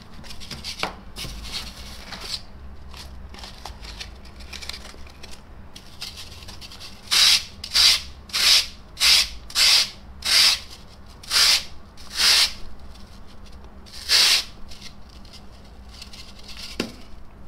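A sanding block rubbed over polyurethane foam. After some quieter scraping and handling, about nine loud sanding strokes come in a row, just under a second apart, from a little before halfway through.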